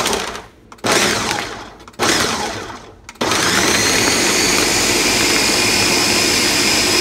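Ninja countertop blender chopping a jug of spinach, strawberries, blueberries, bananas and water into a smoothie: three short pulses about a second apart, then running continuously from about three seconds in with a steady high whine as the fruit liquefies.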